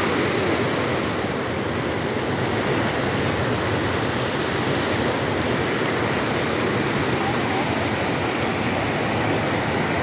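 Waterfall's whitewater rushing over rock ledges: a loud, steady rush of water.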